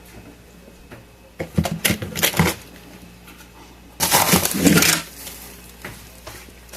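Frozen food packages in plastic bags being handled in a chest freezer: a few knocks and rustles, then a louder crinkle of plastic lasting about a second, about four seconds in.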